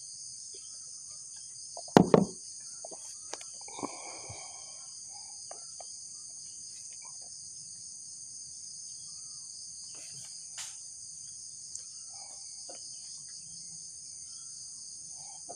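Steady, high-pitched chirring of insects. A single loud knock sounds about two seconds in, and a few faint clicks follow.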